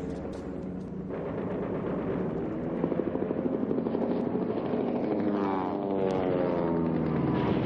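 Helicopter rotor chop, a fast even pulsing, over sustained pitched tones, with a falling tone a little past five seconds in.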